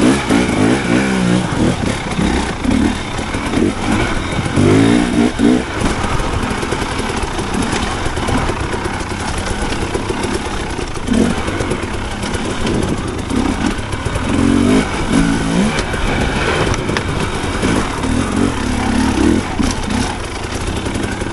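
Dirt bike engine revving up and down while riding, its pitch rising and falling over and over.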